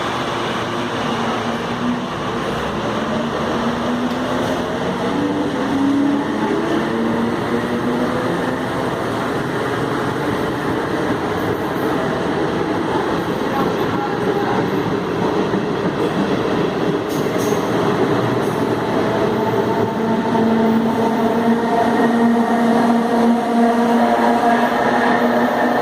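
CPTM Série 1100 electric multiple unit pulling away, its traction drive growling heavily. Several tones rise in pitch as it gathers speed, then a strong steady tone takes over near the end.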